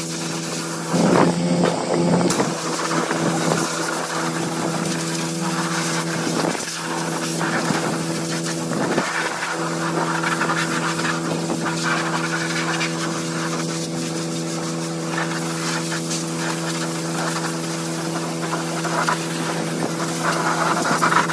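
Pressure washing: a water jet hisses against a truck, swelling and easing as the wand moves, over a steady engine drone.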